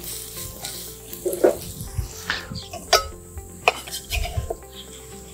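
Chopped onion, green capsicum and garlic sautéing in oil in a non-stick frying pan, with a light sizzle. Several sharp knocks and scrapes come from the pan being tossed on the gas burner.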